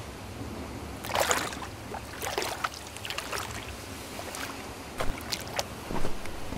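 Footsteps splashing through shallow water and slush, then crunching into snow, an uneven step about once a second with the loudest about a second in, over a low, steady wind-like hiss.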